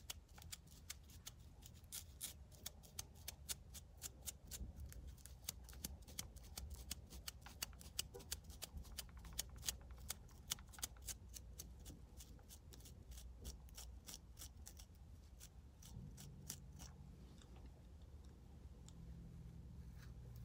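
A small bristle brush scratching quickly over a scalp to loosen dandruff flakes: faint, dry scratchy strokes at about four a second, thinning out after about thirteen seconds.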